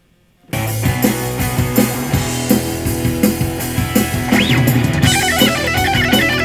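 A loud rock backing track with drums starts suddenly about half a second in, and an electric guitar solo plays over it. A bent note rises and falls about four seconds in, then fast runs of notes follow.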